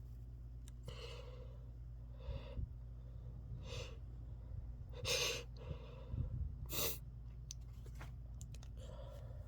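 A person's breathy gasps and sighs, about six in a row one to two seconds apart, the loudest about five seconds in and a short, sharp one just before seven seconds: the breathing of a sneeze building up.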